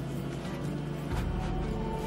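Background music with steady held notes; a deeper bass comes in about a second in.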